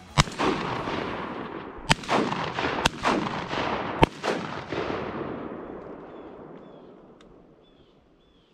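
Four shotgun shots over a couple of seconds and more, each followed by a long rolling echo that fades away over the next few seconds.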